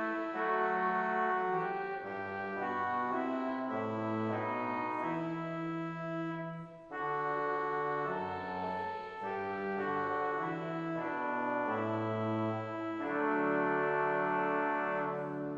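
Church organ playing a slow hymn tune in sustained chords, with a short break between phrases about seven seconds in and again at the end.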